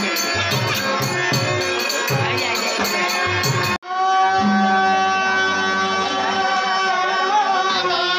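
Dashavatar theatre music: harmonium with drumming and jingling percussion in a quick rhythm. About four seconds in, the sound cuts off abruptly and switches to a man singing in a loud, full voice over sustained harmonium chords.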